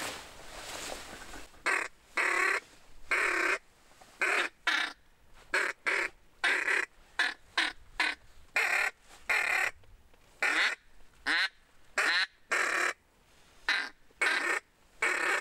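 A long series of loud, harsh, duck-like quacking calls, roughly two a second, starting about a second and a half in.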